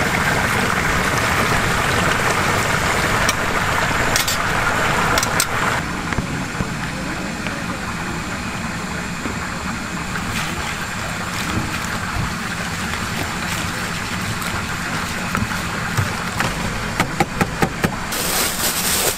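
Whole chicken pieces sizzling as they deep-fry in hot oil in a cast-iron cauldron, for about the first six seconds. Then the frying sound gives way to a batter being whisked by hand in a plastic bowl, with a quick run of clicks from the wire whisk striking the bowl near the end. A steady low rumble runs underneath.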